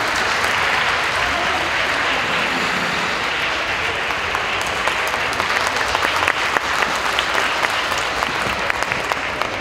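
Audience applauding, a dense clapping that thins out toward the end into separate claps.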